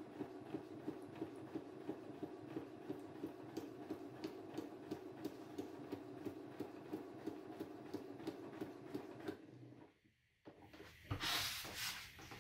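Domestic electric sewing machine stitching at low speed with no thread, its needle punching through a paper practice sheet in an even, regular rhythm of clicks over the motor's hum. It stops about nine and a half seconds in, followed by the rustle of the paper sheet being handled.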